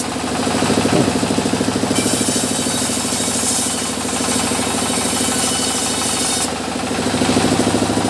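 A sawmill machine's engine running steadily with a fast, even pulsing beat. A hiss above it grows about two seconds in and falls back about six and a half seconds in.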